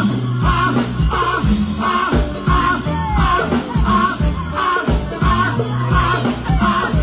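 Go-go band playing live over a PA system: a steady, percussion-driven groove with a low bass line, recorded from among the crowd.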